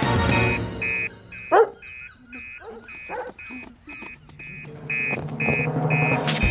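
Fire station alarm printer beeping, one short high tone repeated about twice a second, signalling an emergency call coming in. A dog barks among the beeps, with a loud rising yelp about one and a half seconds in.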